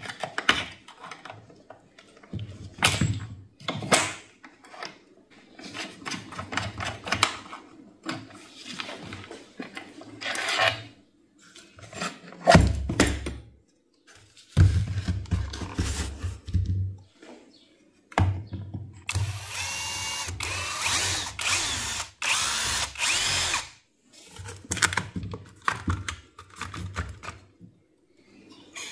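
Cordless drill or electric screwdriver running in short bursts of one to several seconds, with a steady motor hum, amid clicks and knocks of tool and metal parts being handled. The longest, noisiest run comes past the middle.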